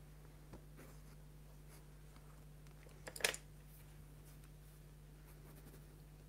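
Faint scratching of art tools on paper, with a short clatter of clicks about three seconds in as the white pencil is put down and a paintbrush picked up. A low steady hum runs underneath.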